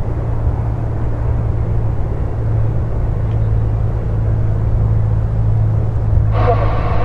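Cessna 182R Skylane II's six-cylinder piston engine and propeller running steadily with a deep, even drone as the aircraft rolls along the runway. About six seconds in, higher steady tones join the drone.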